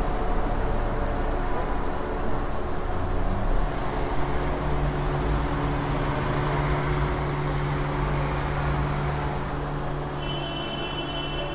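City street ambience: steady traffic noise, with a low engine hum coming in about four seconds in.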